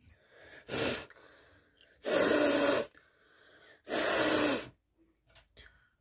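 A person blowing their nose hard: one short blast of air, then two long, loud ones.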